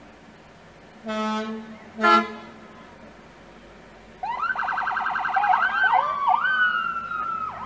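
Two short horn blasts from an emergency vehicle, the second louder, then its siren comes on about four seconds in, warbling rapidly and then sweeping up and down more slowly.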